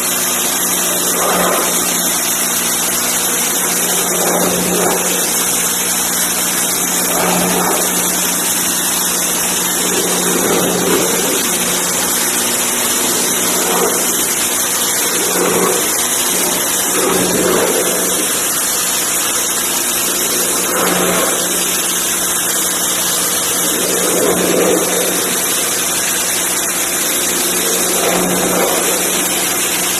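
Pressure washer running steadily: the motor-driven pump hums under the loud hiss of the high-pressure water jet striking a surface. The spray's sound swells and shifts every few seconds as the jet moves.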